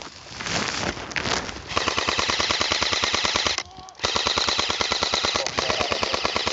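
Airsoft electric gun firing two long full-auto bursts, a rapid even stream of shots with a short break of under half a second between them. Before the first burst there is rustling, which fits spruce branches brushing past.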